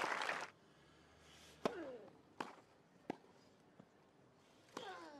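Crowd applause cuts off about half a second in, then a tennis rally on a grass court: sharp racket strikes on the ball, spaced well under a second apart, two of them followed by a player's short falling grunt.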